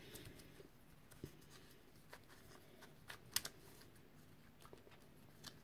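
Faint, scattered plastic clicks of a magnetic QYToys Skewb puzzle being turned by hand, a handful of separate clicks with the sharpest a little past the middle.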